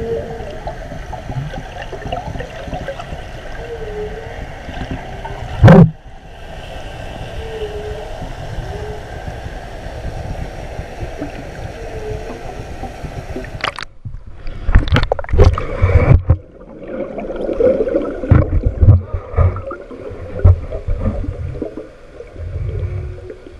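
Underwater camera sound: a steady rushing water hiss with a sharp knock about six seconds in, then from about fourteen seconds on loud, irregular gurgling and bubbling surges of water moving past the camera.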